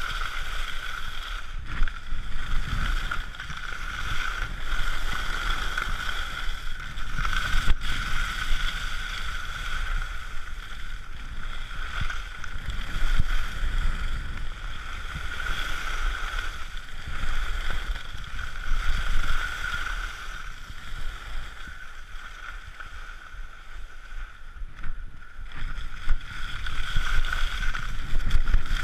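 Skis sliding and scraping over packed snow during a downhill run, heard through a chest-mounted action camera, with a rush of wind on the microphone; the noise swells and fades.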